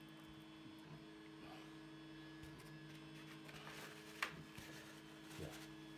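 Near silence in a small room with a steady electrical hum, and a faint click about four seconds in.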